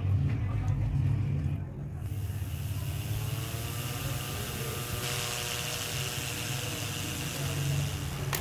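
Opened hard drive's spindle motor spinning up its bare platter as power is connected: a whine that rises in pitch over a few seconds and settles into a steady tone with an airy hiss from the spinning disc. A low hum runs underneath.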